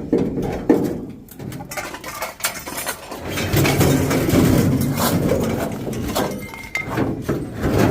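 Knocks and clanks of metal scrap being shifted in the back of a van, with a longer scraping, rumbling stretch in the middle as a heavy item is hauled about.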